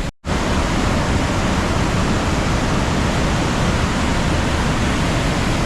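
Steady rush of a waterfall or rapids, an even, loud noise of falling water without any pitch, briefly cut off for a moment just after the start.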